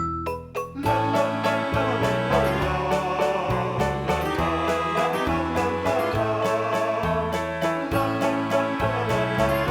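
Instrumental background music: a few separate plucked or struck notes, then about a second in a fuller tune with a steady beat.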